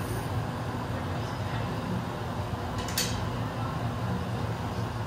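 Steady roar of a gas-fired glassblowing glory hole and its blower while a gather is reheated in it, with a low hum under it. One short sharp click about three seconds in.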